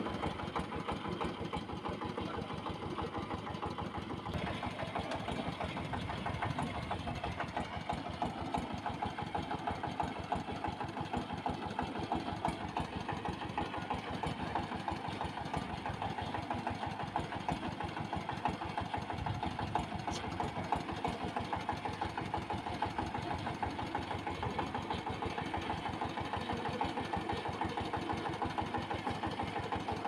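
Single-cylinder diesel engine of a công nông farm tractor running steadily at idle, a rapid, even chugging.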